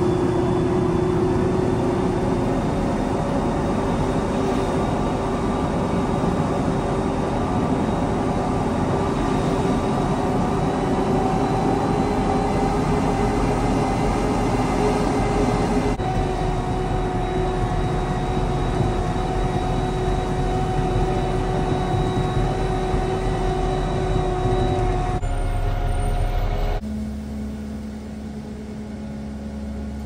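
Peterbilt concrete mixer truck's diesel engine running while driving, a steady drone with road noise that climbs slightly in pitch over the first half. It changes abruptly twice and drops quieter near the end.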